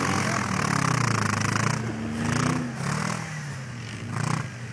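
A car engine revving in repeated surges that rise and fall, with a hiss that swells along with each surge, as one car tows another that is stuck in deep snow.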